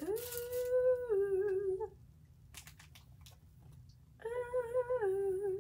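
A woman humming a short two-note phrase twice: a held note that steps down to a lower, wavering one, about two seconds each time. Faint handling clicks come in the gap between.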